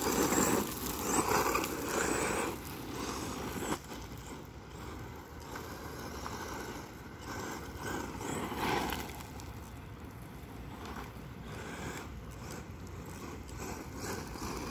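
Brushless-motor RC truck drifting on gravel: tyres scrabbling and crunching through loose stones along with the motor, louder for the first couple of seconds and briefly again near nine seconds, fainter in between.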